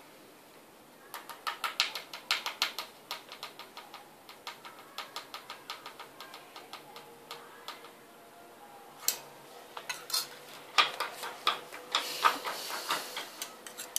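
Quick light clicks of a spoon against a small plastic dog bowl as food is put in, a few clicks a second. About nine seconds in, louder irregular clicks and knocks start as a puppy eats from the bowl.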